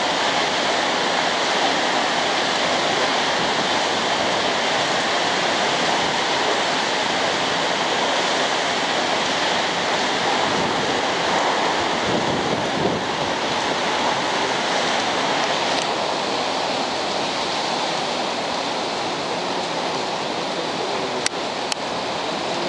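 Gale-force tropical-cyclone wind and driving rain: a steady, loud rushing that keeps on without a break. A couple of brief clicks sound near the end.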